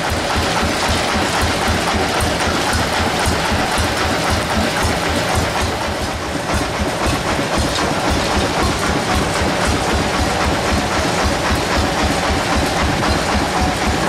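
Sawmill engine running steadily without load, with a fast, even low chugging.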